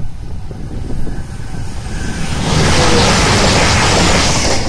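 First TransPennine Express Class 185 diesel multiple unit approaching and passing close by at speed. Its rumble grows, then the rushing roar of the train going by swells sharply about two and a half seconds in and stays loud until near the end.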